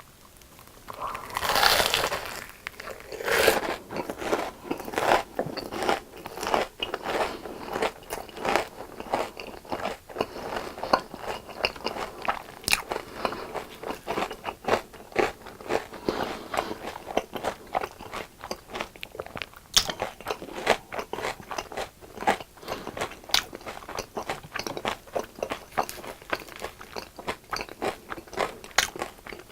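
Close-miked biting and chewing of crispy deep-fried food, with loud crunches on the first bites about two and three and a half seconds in, then steady crackly chewing with sharp crunchy clicks.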